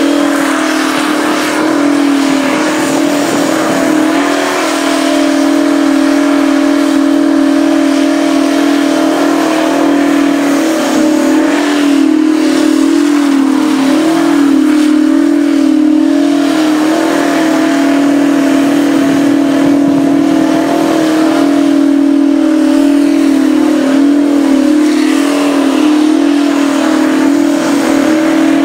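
Twin-turbo V16 engine of a Mack burnout truck held steadily at high revs through a long burnout, its pitch wavering slightly, with the drive tyres spinning against the track.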